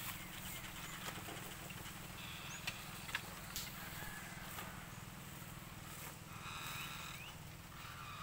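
Footsteps and a stick crunching through dry grass and leaf litter, with a few sharp clicks, over a steady low outdoor rumble.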